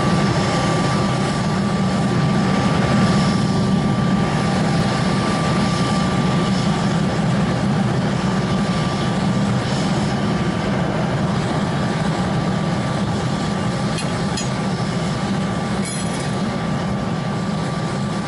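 Homemade foundry furnace running under forced air from an electric blower: a steady low drone with a constant thin whine above it.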